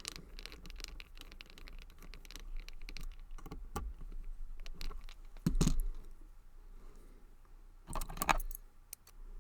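Lockwood 334B45 brass padlock and its key being handled: a run of small metallic clicks and rattles, with louder knocks about five and a half and eight seconds in.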